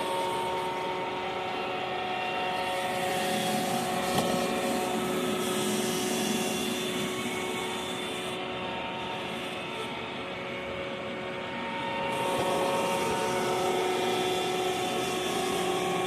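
iRobot Roomba i3 robot vacuum running: a steady whirr of its vacuum motor and brushes with a held droning hum, heard from a camera riding on the robot. A high hiss drops away about eight seconds in and comes back about four seconds later.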